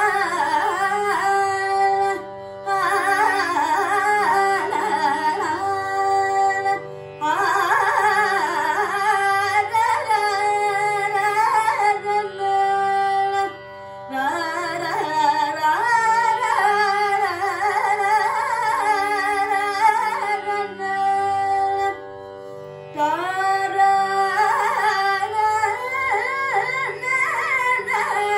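Carnatic vocal singing: a female voice sings a raga in long, winding phrases full of gamakas over a steady drone. The phrases break off in short pauses about four times while the drone holds on.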